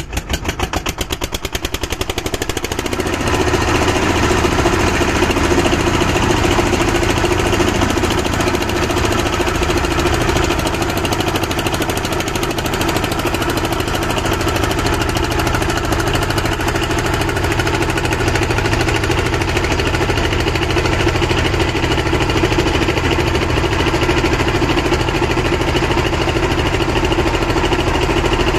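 A small river boat's engine chugging, its beats quickening over the first three seconds as it speeds up, then running steadily and loudly.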